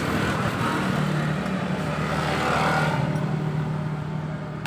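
Yamaha Mio J electric starter motor spinning its reduction gears on the exposed one-way starter gear, a steady mechanical whirr that fades slightly near the end. It is a test run after the starter's brush assembly was refitted the right way round, so it now turns forward instead of backward.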